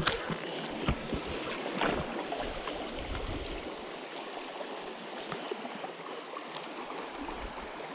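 Creek water running steadily, with a few short knocks or clicks in the first two seconds.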